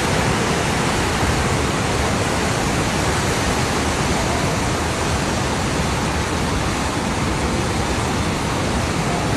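Steady rushing of a river in flood, its swollen, fast water making an even noise with no let-up.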